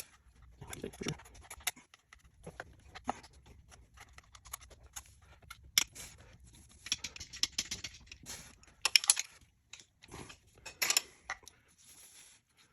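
A wrench working the 10 mm nut off a motorcycle's stock gear shift lever: scattered metallic clicks and scrapes with quick runs of ticking, busiest about seven to nine seconds in and again around eleven seconds.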